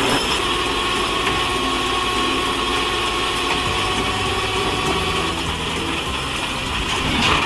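Heavy tow truck's engine idling steadily, with a thin steady whine over it that stops about five seconds in.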